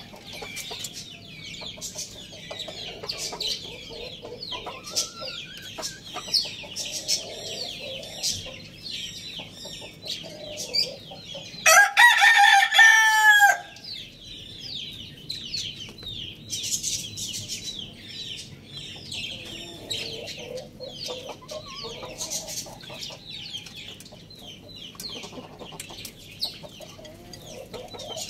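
Young roosters clucking softly while feeding, over a constant chatter of short high chirps, with one rooster giving a single loud crow, under two seconds long, about twelve seconds in.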